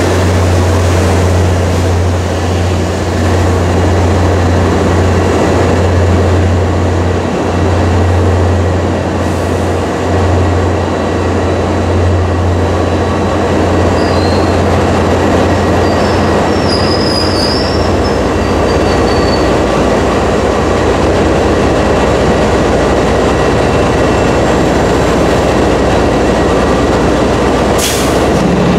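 Bilevel commuter coaches of an MBTA train rolling past along a station platform, with a steady low drone from the F40PH-3C diesel locomotive that drops away about 18 seconds in. A brief high wheel squeal comes a little past the middle.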